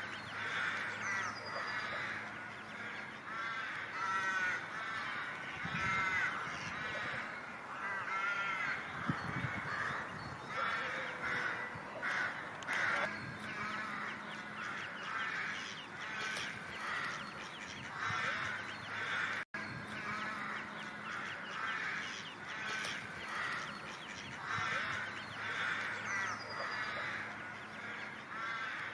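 Ducks calling: many harsh quacks in quick, overlapping series. The sound cuts out for an instant about two-thirds of the way through.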